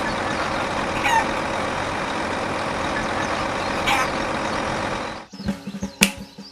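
A steady running engine or motor noise, constant in level, with a couple of brief high chirps; it cuts off abruptly about five seconds in, and sparse pitched music-like sounds follow.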